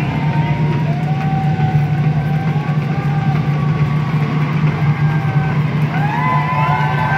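A large crowd's steady din of many voices, with long drawn-out shouts and whoops overlapping; several shouts rise in pitch and swell about six seconds in.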